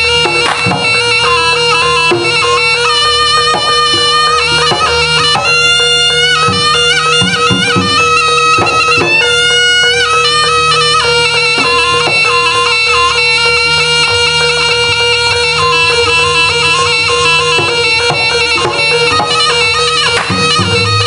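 Loud live jaranan music from an East Javanese ensemble: a shrill, reedy slompret (Javanese shawm) playing a winding melody over a steady held tone, with drum strokes.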